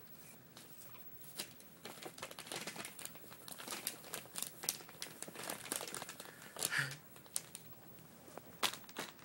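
Brown paper bag crinkling and rustling as a kitten moves about inside it, in irregular crackles with two louder bursts near the end.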